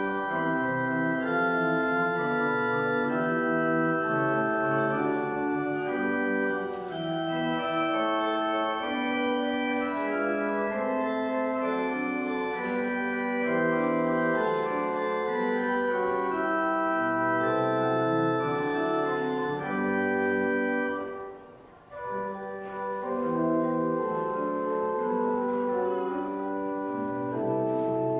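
Organ playing a slow piece in sustained chords, the notes held and changing every second or so. About three-quarters of the way through, the sound briefly drops away, then the playing picks up again.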